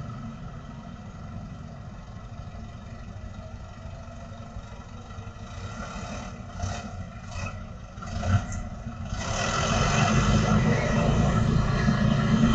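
Engine noise from a light truck and motorcycles on a street, low and steady at first, then louder and fuller from about nine seconds in as the vehicles move close by.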